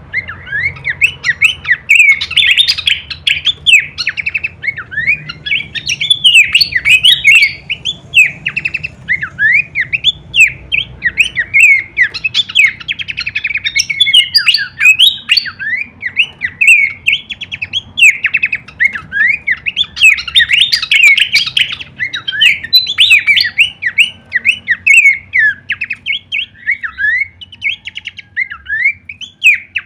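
Pelanduk semak (Horsfield's babbler) singing a fast, unbroken string of short, varied chirps and whistles that sweep up and down in pitch, several notes a second.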